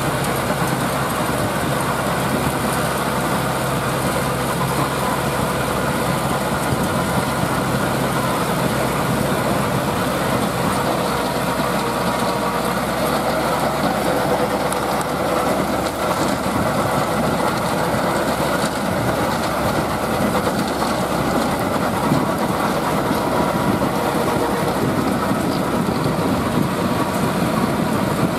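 Landini 8860 tractor's Perkins 4.1-litre four-cylinder diesel engine running steadily under load, with its rear rotary tiller churning dry stubble soil.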